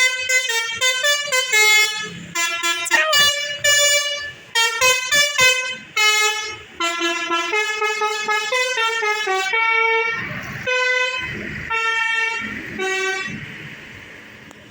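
Telolet horn, a multi-tone musical air horn, playing a melody: a quick run of stepping notes, then from about ten seconds in slower, separate notes with a hiss of air between them, dying away near the end.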